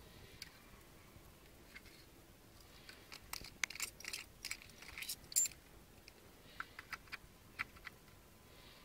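Small plastic and metal clicks and rattles as a cigarette-lighter FM transmitter is handled and its parts turned between the fingers. The clicks come in a busy cluster a few seconds in, then as a few single clicks near the end.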